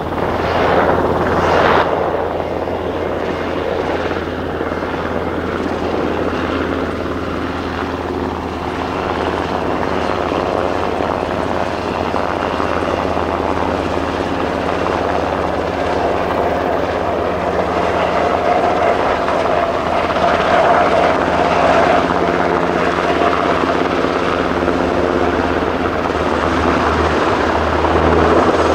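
US Navy Sikorsky SH-60F Seahawk helicopter in flight: a steady rotor beat with the whine of its twin turboshaft engines, growing slightly louder toward the end.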